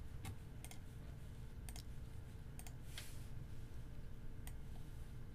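Computer mouse button clicks, a few scattered sharp clicks, some in quick pairs like double-clicks, over a faint steady hum.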